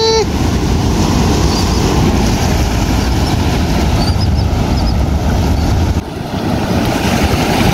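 Ocean surf washing on the beach, with wind blowing on the microphone, steady throughout.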